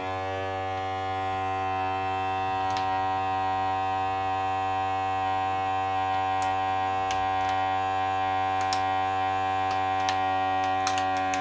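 Electric vacuum sealer's pump running with a steady hum, drawing the air out of a zip-lock vacuum bag through a hose on the bag's valve. A few sharp clicks sound through it as the plastic bag draws tight.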